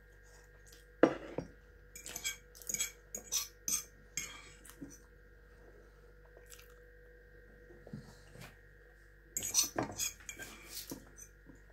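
A metal fork clinking and scraping against a metal frying pan while eating. There is a single loud clink about a second in, a run of clinks and scrapes a couple of seconds later, and another run near the end.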